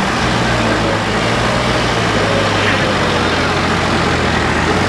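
New Holland 3630 tractor's three-cylinder diesel engine running steadily while hauling a fully loaded soil trailer.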